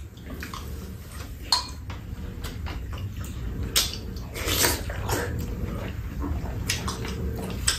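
Eating sounds at a meal: spoons and chopsticks clicking against bowls and a metal tray, with mouth sounds of chewing and slurping food from a spoon, over a steady low hum.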